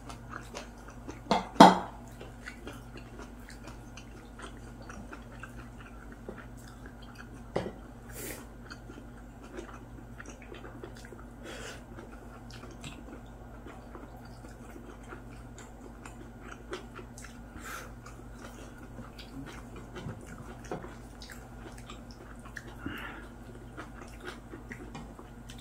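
Two people eating braised pork back ribs and radish greens with chopsticks: quiet chewing and slurping with small clicks of chopsticks and dishes, over a steady low hum. A sharp clack about a second and a half in is the loudest sound, with a smaller one a few seconds later.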